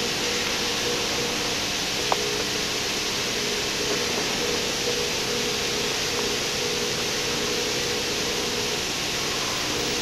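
Steady machinery noise of a factory floor running induction furnaces: an even hiss with a faint drone under it. There is a faint click about two seconds in.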